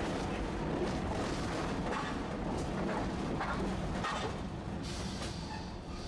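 Tosaden streetcar running along the street track, a steady rumble of wheels on rail with a few faint clicks, easing slightly near the end.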